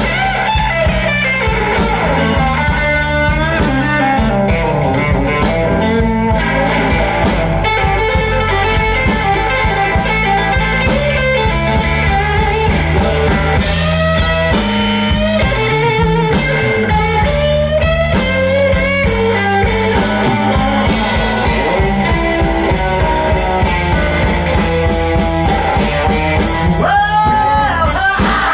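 Live blues band playing an instrumental passage: electric guitar lead lines with bent notes over bass guitar and a drum kit.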